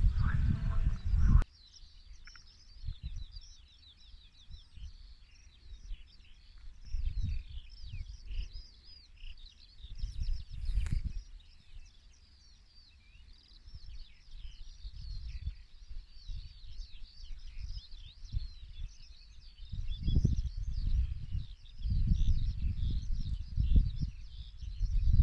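Many small birds singing and chirping together in a dense spring chorus of quick high twitters. Low gusts of wind rumble on the microphone come and go, strongest near the end. It opens with a loud buzz that cuts off suddenly about a second and a half in.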